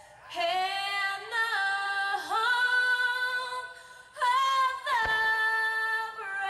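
A woman singing, holding long notes and sliding between them, with short breaks between phrases. A faint low thump comes about five seconds in.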